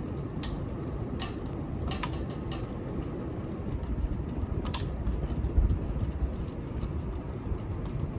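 Ceiling fan running, with a steady low whoosh of moving air and irregular sharp clicks about once every half second to a second. The clicking comes from screws that have worked loose, which the owner traces to the blade screws.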